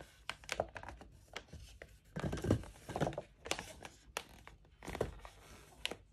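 Inflated latex modelling balloons rubbing against each other and the hands as they are twisted into shape: irregular sharp clicks and squeaks, with a longer stretch of rubbing about two to three seconds in.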